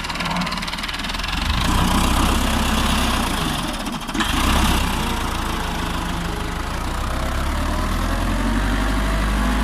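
Tractor diesel engine running under load while pulling a plough or cultivator through the field. It grows louder about a second and a half in, drops briefly at about four seconds, then picks up again and runs steadily.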